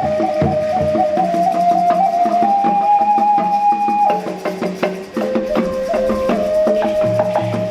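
Ancient-Mexican-style music: a flute holds long notes that step from pitch to pitch, over drum beats and sharp wooden clicks and rattles.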